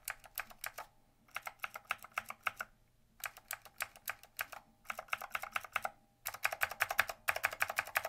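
Clicky green mechanical keyboard switch under an ABS SA-profile keycap, pressed and released rapidly in runs of sharp clicks with short pauses between the runs.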